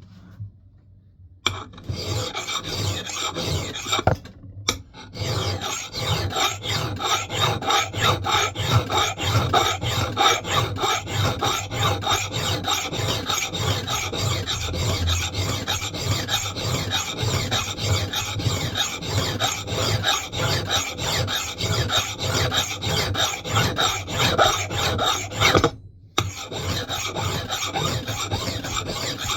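Metal file rasping across the steel bit of a Mann Edge Tool Company knot clipper axe head in quick, steady back-and-forth strokes. The strokes start about a second and a half in, with a short pause a few seconds later and another near the end.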